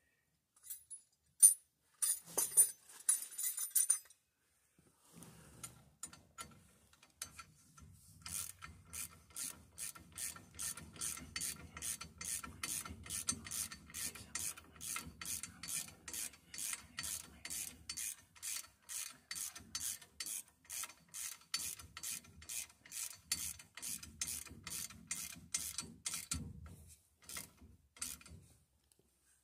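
Socket ratchet wrench clicking in a steady rhythm, about two to three clicks a second, as the bolts of a drum-brake backing plate are run in. Near the start there are a few separate clicks and a short scraping rattle.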